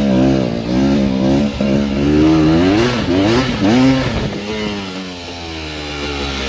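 250 cc two-stroke enduro motorcycle engine revving up and down under throttle on a trail ride, then easing off with the pitch falling steadily over the last couple of seconds.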